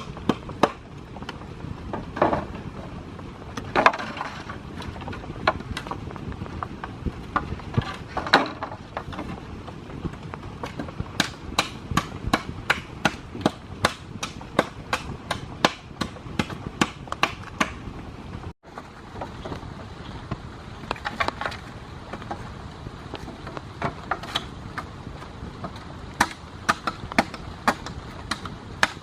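Repeated sharp blows on wood: a few spaced strikes, then a fast even run of about four blows a second, which breaks off and resumes after a short cut.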